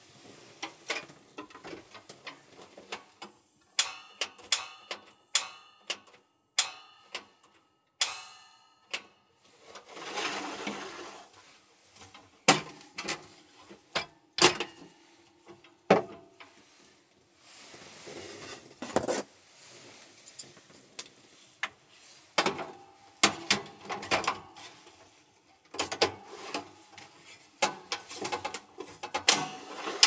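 Knocks, clicks and metallic clinks as a portable cassette gas heater and its gas canister are handled and set down on a wooden counter. The clinks ring briefly in a run of strokes a few seconds in, and there are two short stretches of a soft rustling noise.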